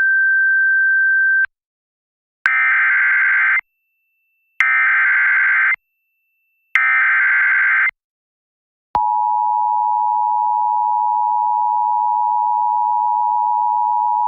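Emergency Alert System tones on a radio broadcast. A steady single tone cuts off about a second and a half in. Then come three one-second bursts of the warbling SAME digital header about a second apart, and about nine seconds in the steady two-tone EAS attention signal starts and holds.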